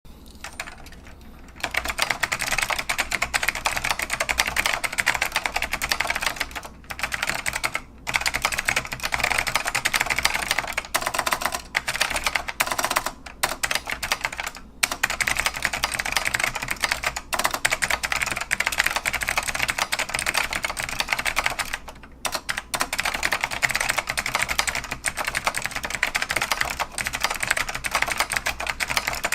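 Fast continuous typing on a Northgate OmniKey Evolution split keyboard with white Alps mechanical switches: dense rapid key clicks, broken by a few brief pauses.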